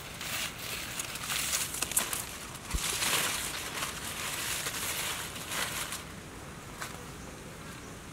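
Palm fronds rustling and crackling as they are handled and spread over dry leaf litter, busiest for the first six seconds and quieter after.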